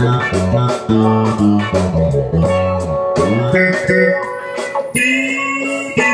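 Squier Precision Bass played through a Boss GT-6B bass processor on a clavinet-like patch with compression, chorus and reverb: a line of plucked notes changing several times a second, in F# Dorian, over a backing track.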